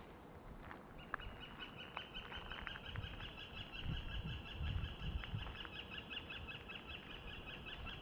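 One long, even, rapidly pulsed trill from a woodland animal, starting about a second in and lasting about seven seconds. Low rumbles sound underneath it.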